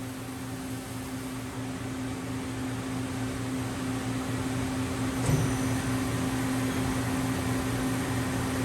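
Mori Seiki NH6300 DCG horizontal machining center running with a steady mechanical hum and hiss that slowly grows louder, with a short knock about five seconds in.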